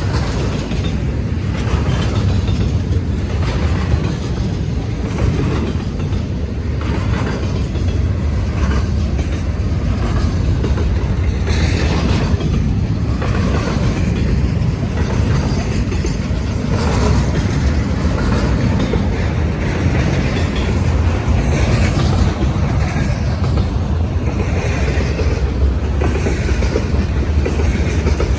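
Freight train of empty intermodal flatcars rolling past: a steady low rumble with repeated clacking of wheels over the rail joints.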